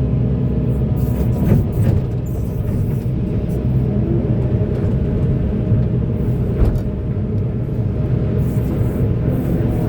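Volvo EC480DL excavator's diesel engine running steadily at work, with two short knocks, one about a second and a half in and another about two-thirds of the way through.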